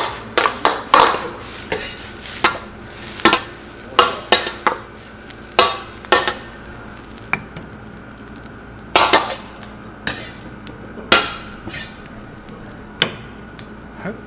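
Metal ladle clanking and scraping against a wok while fried rice is stir-fried: a dozen or so sharp clanks at uneven intervals, with quieter gaps between.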